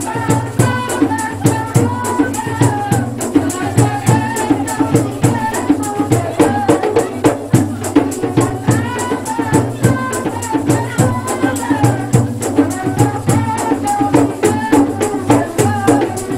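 A woman singing a folk song into a microphone over amplified music, with a steady beat of quick shaker or tambourine strikes.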